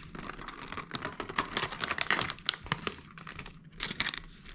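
Thin clear plastic zip-lock bag crinkling and crackling in a dense run of small clicks as a wire shad drift trace is slipped into it by hand, easing off briefly near the end.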